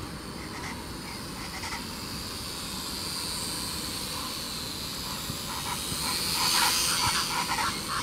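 Quadcopter drone's propellers buzzing as it flies, growing louder around six to seven seconds in as it comes nearer.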